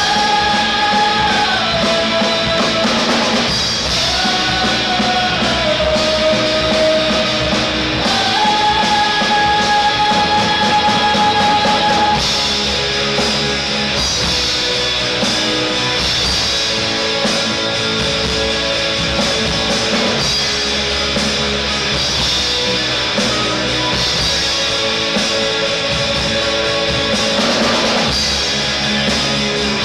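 A live rock band playing with female singers, electric guitars, keyboards and drums. For the first dozen seconds the singers hold long notes that slide between pitches, and after that the full band carries on loud and steady.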